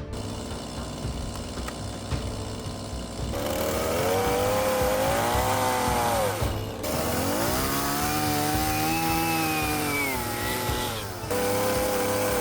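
Gas chainsaw cutting into a wooden log. The engine pitch sags under load and climbs again as the bar works through the wood, twice over. It breaks off briefly in the middle and settles to a steady high rev near the end.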